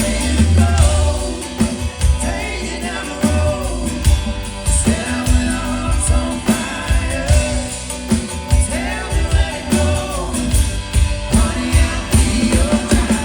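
Live rock band playing a song: singing over a full band, with heavy bass and a steady drum beat.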